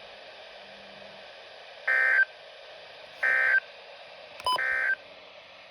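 NOAA Weather Radio emergency alert data bursts, the three short buzzy tones of the end-of-message code that close an alert. The bursts come about a second and a half apart, with a sharp click just before the third, over a faint radio hiss.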